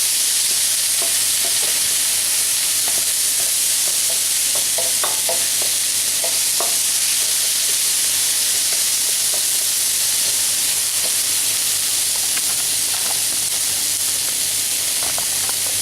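Grated carrot sweating in a little oil in a wok on low heat, giving a steady sizzle. Scattered light ticks of a utensil stirring it run through the sizzle.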